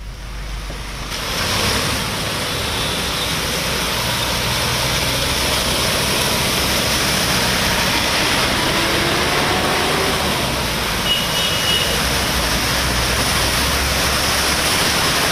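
Traffic driving through floodwater on a road: a steady rush of water and tyre spray, with vehicle engines running underneath.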